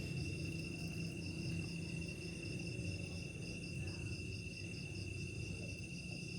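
Night insects calling: one steady high-pitched trill together with another chirping in an even pulse several times a second, over a low steady drone.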